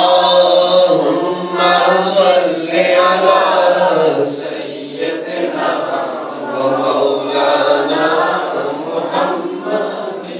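A group of men's voices chanting a devotional refrain together, fading away near the end.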